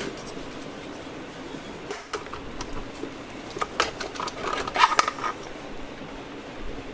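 Metal tools and parts clinking and clattering as they are picked up and handled, a run of sharp clicks from about two seconds in, with the loudest ringing clinks near five seconds.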